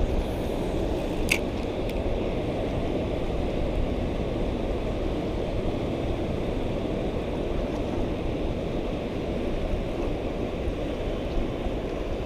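Steady rush of wind and moving water at a river mouth, with one short sharp click about a second in.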